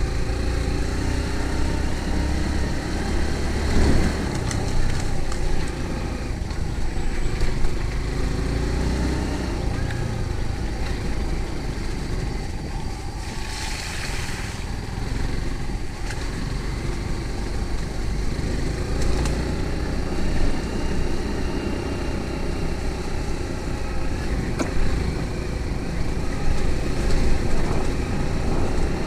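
A motor vehicle running, a steady low rumble throughout.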